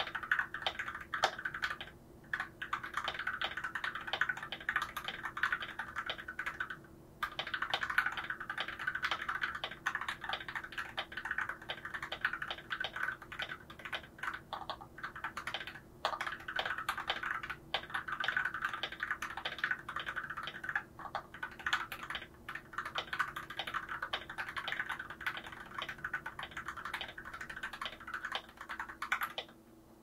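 Fast typing on a Gamakay LK67 mechanical keyboard, a plastic-cased board with an aluminum plate, fitted with factory-lubed Gateron Silver two-stage linear switches: a dense stream of keystroke clacks. The typing pauses briefly about two and seven seconds in and stops just before the end.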